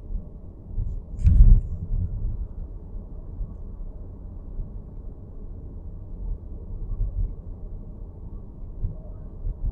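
Low road rumble inside the cabin of a moving Nissan X-Trail e-POWER, with one sharp short knock about a second in: the abnormal dashboard noise.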